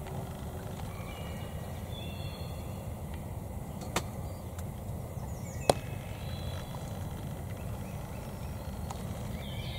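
Quiet spring woodland with a steady low rumble and faint, high, short bird calls. Two sharp clicks sound about four seconds and about six seconds in.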